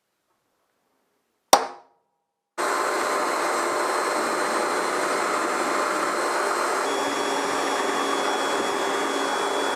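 A sharp click, then a power tool running steadily on the steel blade blank while it is roughed out, with a steady whine that steps slightly lower in pitch about seven seconds in.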